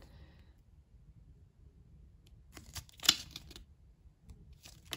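Pages of a small paperback book turned by hand: a brief papery rustle about three seconds in, and a short flick of paper near the end.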